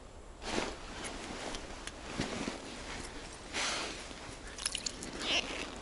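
Rustling and handling noises from gloved hands and a winter jacket working fishing gear over an ice hole: a few short swishes with scattered small clicks.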